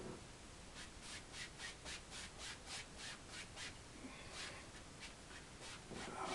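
A wide paint brush scrubbing oil paint onto a wet, primed canvas in quick strokes, about four or five a second, followed by a few slower strokes near the end.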